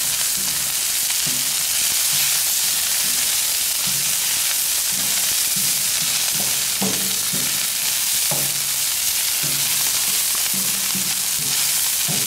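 Vegetables sizzling steadily on a hot flat-top griddle, with tongs clicking and scraping on the steel plate in short irregular strokes as the food is turned.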